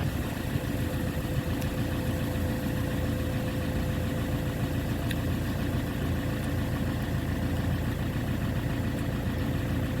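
Tractor engine running steadily at idle, driving the hydraulics of a homemade log splitter, with a faint constant whine over the engine noise.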